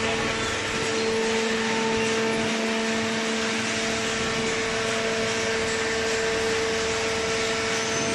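Horizontal hydraulic cardboard baler running: a steady machine hum with a constant low drone and an even whooshing noise over it.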